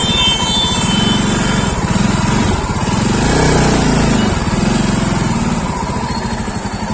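Motorcycle engine running at low speed with a steady firing pulse, briefly rising and falling in pitch about halfway through. A high-pitched whine sounds over it and stops just under two seconds in.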